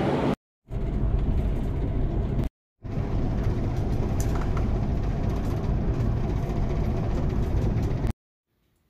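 Steady low rumble of a moving vehicle heard from inside. It comes in three stretches, broken by two short silent gaps, and cuts off sharply near the end.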